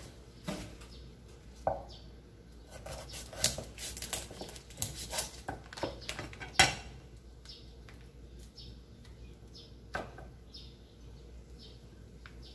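Kitchen utensils and cookware clinking and knocking: a scattered series of sharp clinks, the loudest about six and a half seconds in.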